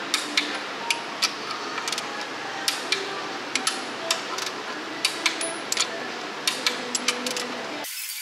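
Hand ratchet clicking in irregular bursts, with small metallic clinks, as the crankshaft bearing cap bolts of a Scania 16-litre V8 block are run down by hand. A steady workshop background sits under it and drops away just before the end.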